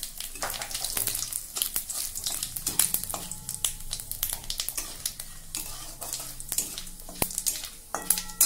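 Whole spices (bay leaves, dried red chillies, cumin seeds and whole garam masala) sizzling and crackling in hot mustard oil in an aluminium kadai, the tempering stage, while a metal spatula stirs and scrapes them around the pan. One sharp knock near the end.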